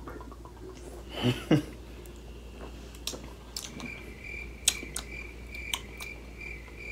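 Two people drinking sangria from glass bottles: two short, loud swallows a little over a second in, then a few light clicks as the bottles are handled. From about halfway a faint, high, evenly pulsing chirp runs underneath.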